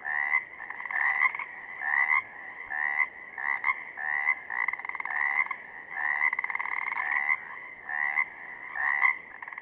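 Pacific chorus frogs (Pseudacris regilla) calling: a steady run of short croaks, about one or two a second.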